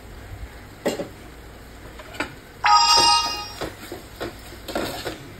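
A metal spoon stirring a prawn curry in an aluminium pot, with scattered knocks of the spoon against the pot. A little under three seconds in there is a brief bright ringing tone of several steady pitches, lasting just over half a second.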